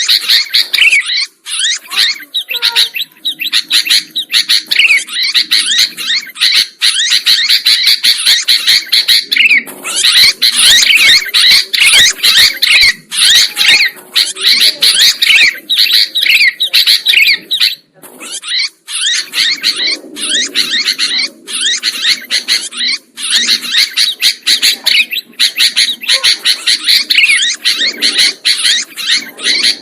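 Sooty-headed bulbuls (kutilang) calling noisily, a dense, rapid chatter of high chirps that keeps going without a pause.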